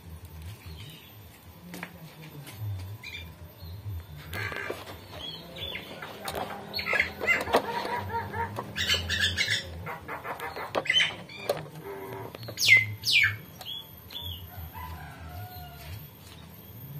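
Birds chirping among scattered knocks and rustling, with a few sharp falling chirps about two-thirds of the way in.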